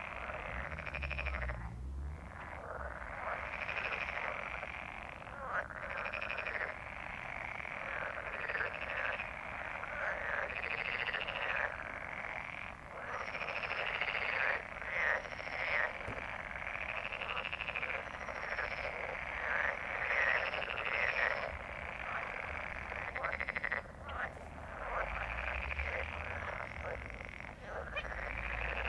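A chorus of many frogs croaking at once, the calls overlapping into a continuous din: a mating chorus.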